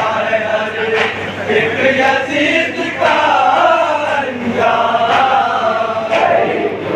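A group of men chanting a nauha (Shia lament) together, with sharp slaps now and then that cut through the chant.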